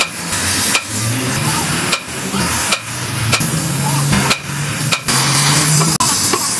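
Sledgehammer blows on a steel truck suspension trunnion, a series of sharp metallic strikes roughly one a second. Under them runs the steady hiss of an oxy-fuel torch flame heating the trunnion.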